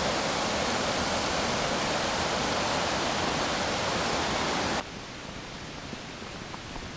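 Steady rush of fast-flowing water, loud and even, cutting off suddenly about five seconds in. What remains is a quieter steady hiss with a few faint ticks.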